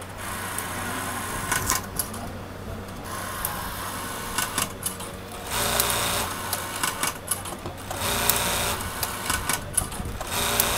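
Juki LBH-1790A computerized lockstitch buttonhole machine sewing bartacks: short runs of rapid stitching with sharp clicks, several times over, above a steady low hum.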